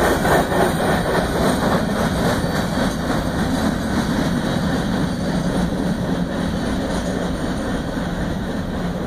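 CSX train passing: a steady rumble of wheels on the rails with a faint regular clatter, easing off slightly toward the end.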